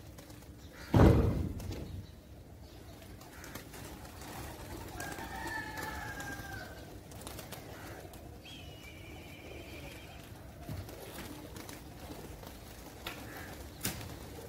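Domestic pigeons cooing on a rooftop loft, with a loud low thump about a second in. A wavering bird call comes a few seconds later, then a higher trilling call.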